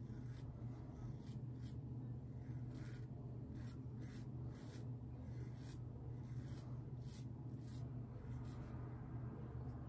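Muhle R41 double-edge safety razor scraping through lathered stubble in short strokes, a crisp scratch about twice a second, over a steady low hum.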